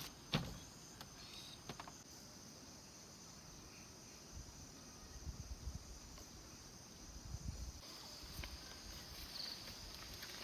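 Steady, faint chorus of crickets and other insects chirring, with a click near the start and a few soft low thumps partway through.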